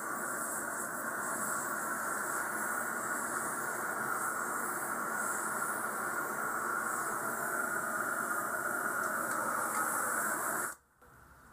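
Hand-held gas torch flame hissing steadily as it heats a bending-brake tension rod for bending. The flame is shut off abruptly near the end.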